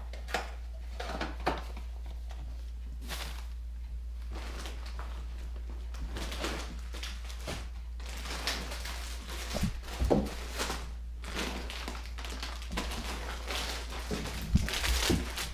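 Intermittent rustling and crinkling with a few soft knocks, the loudest near the middle and near the end, over a steady low hum.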